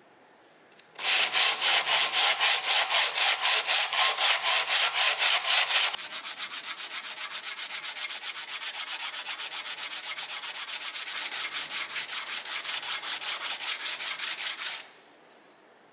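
Sandpaper rubbed back and forth by hand over a wood surface, smoothing a filled crack repair. It goes at about four strokes a second at first, then, about five seconds in, turns to lighter and quicker strokes before stopping near the end.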